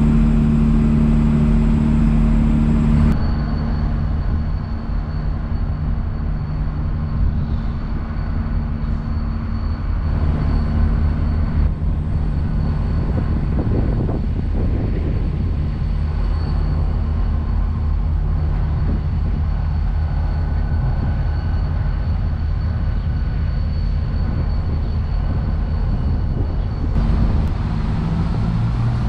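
Diesel multiple-unit trains idling at a station: a steady low engine drone with a faint, steady high-pitched whine. The drone is loudest for the first three seconds, then softer.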